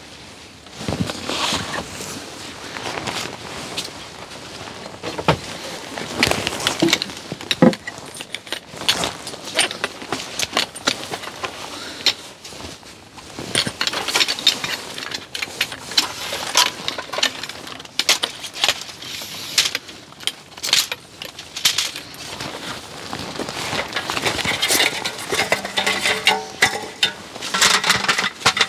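Folding camping chairs and table being unfolded and set up, their metal frames giving many irregular clicks, clinks and knocks.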